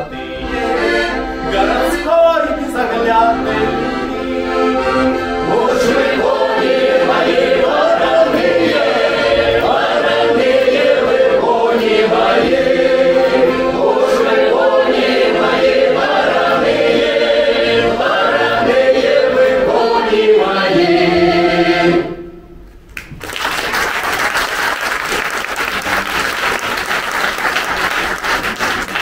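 A mixed choir sings a Don Cossack folk song in parts with accordion accompaniment. The song ends about 22 seconds in, and the audience applauds after that.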